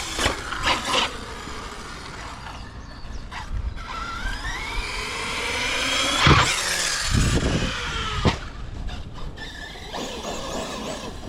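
Brushless 6S motor of an ARRMA Fireteam6 RC car whining, its pitch rising for a couple of seconds as it accelerates, then a sharp knock about six seconds in and another about two seconds later, with a few clicks at the start.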